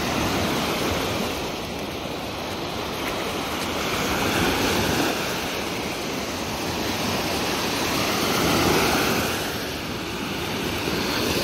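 Lake waves washing against the shore. A steady rushing swells and fades about every four seconds.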